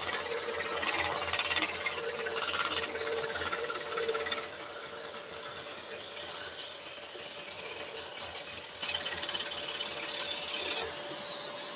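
Scroll saw running, its blade cutting through thin plywood: a steady hiss over a constant hum, with a fast even pulse from the blade's strokes.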